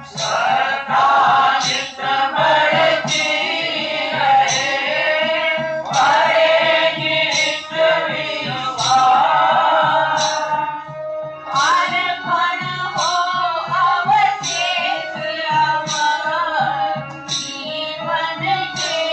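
Devotional bhajan music: a gliding, ornamented melodic line over a steady low rhythmic beat.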